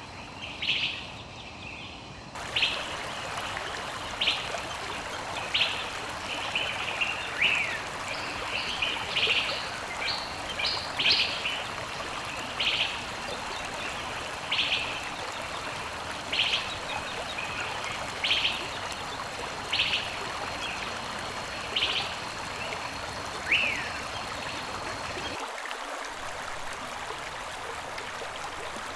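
A bird calling over and over, a short high call about every one and a half to two seconds, some calls slurring downward, over the steady rush of flowing water. The calls stop a few seconds before the end while the water goes on.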